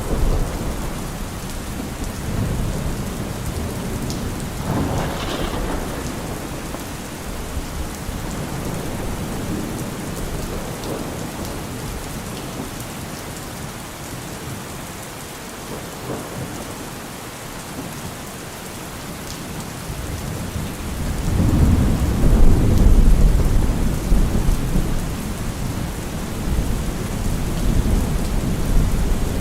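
Steady rain falling, with rolling thunder: a rumble near the start and a brief one about five seconds in, and a louder, longer peal from about two-thirds of the way through that fades near the end.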